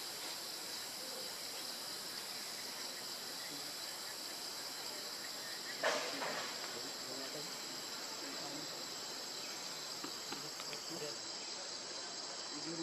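A steady, high-pitched insect chorus drones throughout, with a single short, sharp sound about six seconds in.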